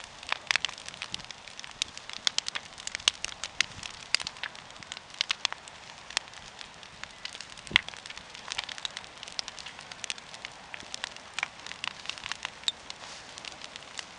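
Open bonfire of brushwood from young ash trees lost to ash dieback, crackling with dense, irregular pops over a steady hiss of flame, and one louder pop about eight seconds in.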